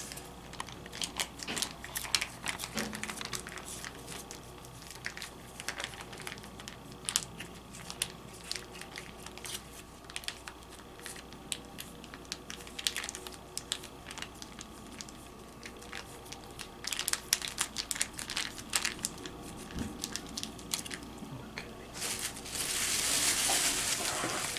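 Plastic sauce pouch crinkling and crackling as it is squeezed and kneaded to push the pizza sauce out, in irregular bursts of small crackles, with a louder, denser rustle near the end.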